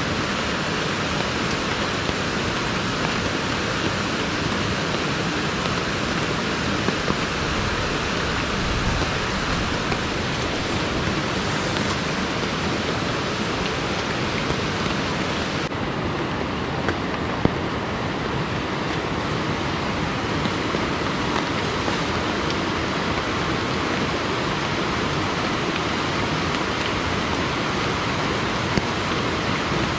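Steady, even rush of a fast-flowing, swollen river, with a few faint clicks. The highest part of the hiss drops away a little past halfway.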